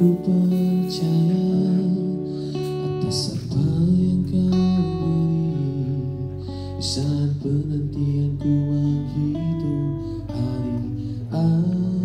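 Slow acoustic pop ballad played live by a small band: strummed acoustic guitar and electric bass over light cajon beats, with a man singing into a microphone.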